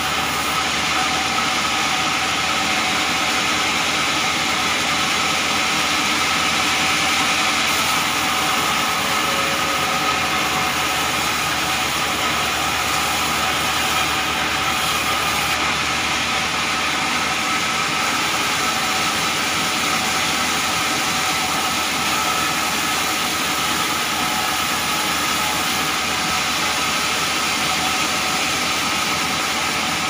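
Sawmill band saw running steadily, its blade cutting lengthwise through a gmelina log.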